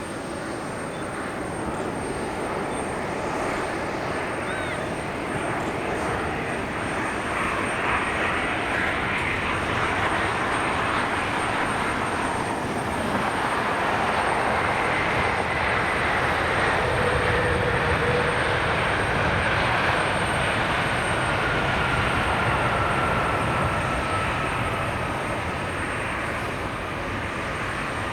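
Jet airliner passing by, its engine roar building and then easing off, with a whine that slowly falls in pitch through the second half.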